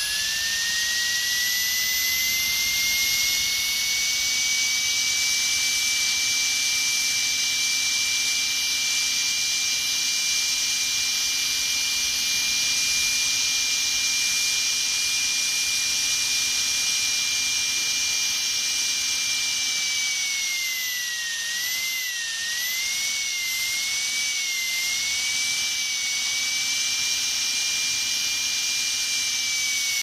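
Dentist's drill whining at a high, steady pitch. About two-thirds of the way through, the pitch dips and wavers for a few seconds, then settles back.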